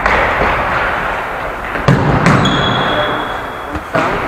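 A futsal ball being kicked and bouncing on a sports hall floor: several sharp thuds that echo around the hall, two close together near the middle and one near the end. A high steady tone sounds for about a second partway through.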